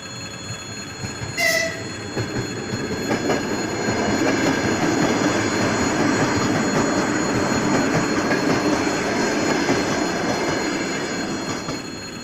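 A train passing over a railway level crossing: the rush of wheels on the rails builds from about two seconds in, holds loud, and eases off near the end. A short high tone sounds about a second and a half in.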